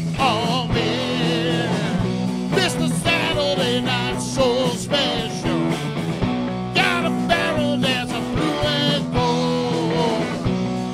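A rock band playing live: electric guitars over bass and a drum kit.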